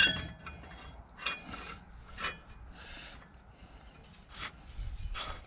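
Finned cylinder barrel of a Vladimirets T-25's air-cooled engine being worked down by hand over the piston and its rings: a metallic clink at the start, then short, intermittent scrapes and rubs of metal on metal.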